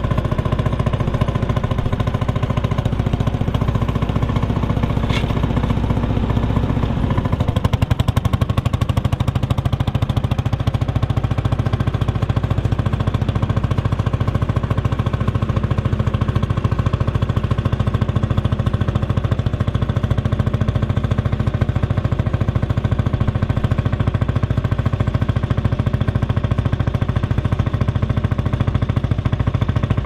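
Lanz Bulldog tractor's single-cylinder two-stroke engine running steadily under load while pulling a two-furrow plough. Its low-end tone shifts about seven seconds in.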